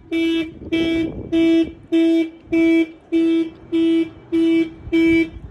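Car alarm honking the horn in short, even blasts of one steady pitch, a bit under two a second. The alarm is malfunctioning and won't stop going off.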